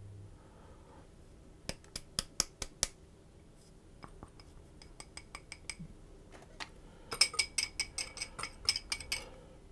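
A metal utensil clinking against a mixing bowl: a quick run of sharp taps early on, a few scattered light ticks, then fast ringing clinks about seven seconds in as the orange juice, sugar and cornflour are stirred together.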